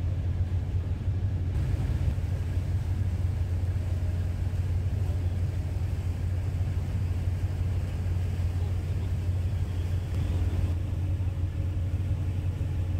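Steady low engine drone of a passenger boat, heard from on board while it cruises.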